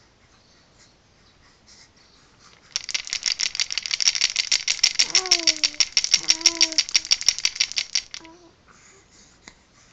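Wooden ring baby rattle with beads being shaken rapidly. It makes a quick, dense rattle that starts about three seconds in and stops about five seconds later. A baby coos twice while it rattles.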